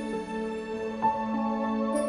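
Gentle new-age background music: sustained notes with a new note coming in about a second in.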